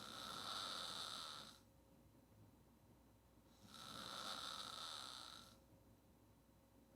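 A woman snoring on her back with her mouth open: two snoring breaths, each about two seconds long, one ending about one and a half seconds in and the next near the middle.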